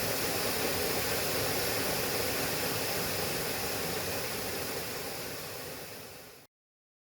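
Steady rush of falling water at Yellow Branch Falls, fading away about five seconds in and cutting off to silence a little later.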